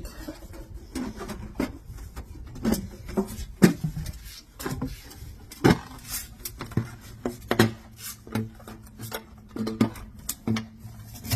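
Thin sheet-metal duct pipe being handled and its snap-lock seam pressed together: a string of irregular metallic clicks, taps and rattles, with the seam not snapping in straight.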